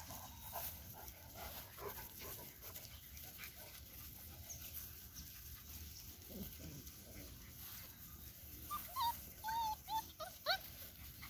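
Great Dane puppies whimpering and yipping: a run of short, high cries near the end.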